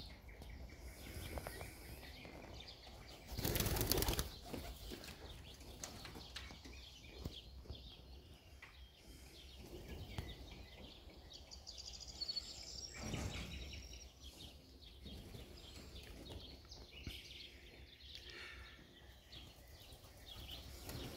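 Racing pigeons' wings flapping in flight, faint, with a louder rush of wings lasting about a second around four seconds in and a shorter one about thirteen seconds in.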